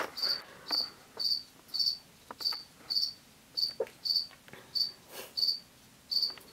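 A cricket chirping steadily, about two short chirps a second, with faint clicks underneath.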